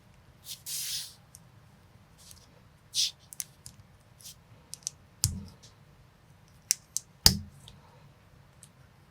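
Plastic building bricks being handled and clicked together by hand: irregular small clicks, a short scratchy rustle about a second in, and two heavier knocks with a dull thud about five and seven seconds in.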